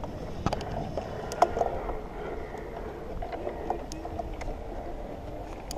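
Scattered sharp clicks and light knocks over a steady low rustle, the loudest clicks about half a second and about a second and a half in.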